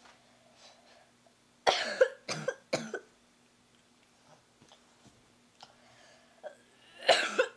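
A girl coughing: a quick run of three or four coughs about two seconds in, then another loud cough near the end.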